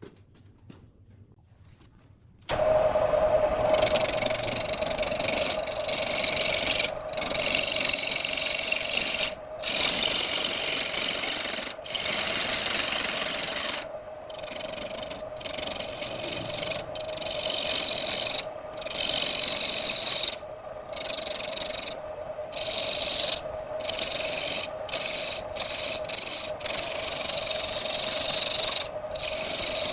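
Turning tool cutting into a log spinning on a wood lathe: a steady scraping hiss over a steady hum. It starts about two and a half seconds in and cuts out briefly again and again.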